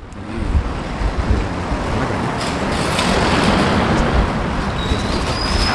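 Road traffic noise, vehicles running past, picked up by a Boya MM1 directional microphone on a smartphone. A thin high whistle comes in near the end and steps up in pitch.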